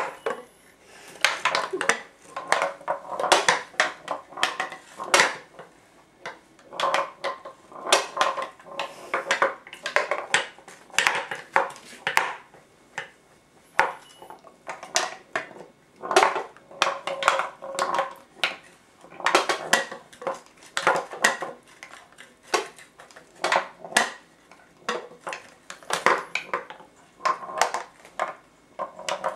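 Metal ball rolling and clattering against the wooden walls of a tilted wooden maze, in irregular runs of rapid clicks and knocks with short pauses between them.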